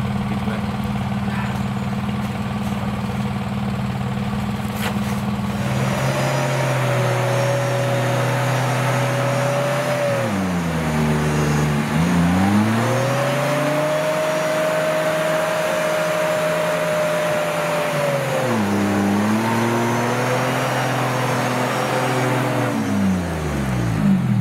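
Off-road 4x4's engine idling, then revved up about six seconds in and held at high, steady revs, dropping back sharply twice before settling at lower revs and falling away near the end.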